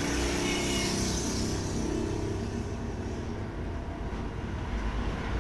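Steady rumble of motor traffic in the background, with an engine passing by during the first couple of seconds.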